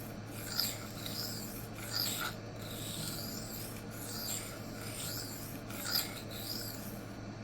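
Steel knife blade stroked across a CBN sharpening plate by hand, a rasping scrape with each stroke, roughly one stroke a second, stopping near the end. The strokes are knocking down a small raised 'shark's fin' of metal near the heel of the edge.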